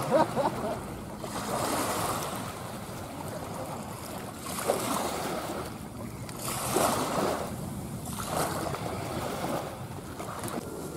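Jet engine noise from a departing Scoot Airbus A320-232 with IAE V2500 engines as it climbs away: a low rumbling rush that swells and fades every second or two, with a short burst of crackle right at the start.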